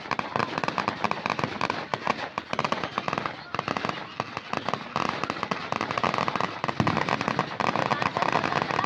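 Fireworks crackling and popping in a rapid, unbroken stream of many small bangs.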